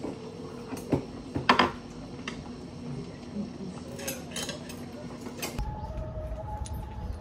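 Clinks and knocks of dishes and cutlery at a meal table over a steady low hum, the loudest pair of clinks about a second and a half in. About five and a half seconds in this gives way to background music.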